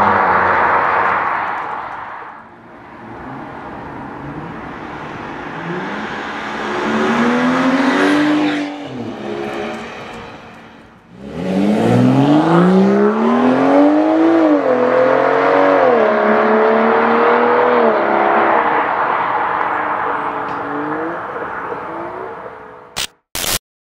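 BMW 335i/435i turbocharged inline-six running through an AWE Touring Edition exhaust with performance mid pipe, driving past under acceleration: the exhaust note rises in pitch and drops back at each upshift, loudest as the car passes close. It fades away near the end, followed by a few short sharp hits.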